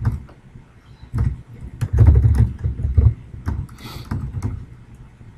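Computer keyboard being typed on: irregular runs of key strokes that come through mostly as dull low thumps, with faint clicks on top.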